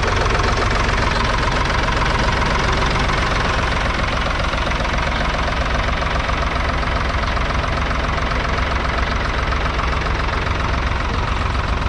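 1967 Ford 3000 tractor's 2.9-litre three-cylinder diesel engine running steadily, a fast, even beat of firing strokes.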